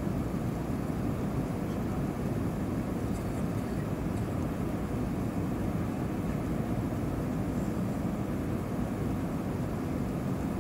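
Steady cabin noise of an Airbus A320-232 on approach: airflow and its IAE V2500 turbofan engines make an even, low rumble that does not change.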